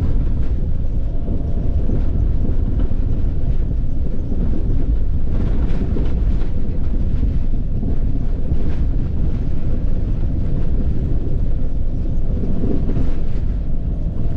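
4x4 Mercedes Sprinter van driving over a rough dirt road: a steady low rumble of tyres and running gear, with a few faint knocks and rattles.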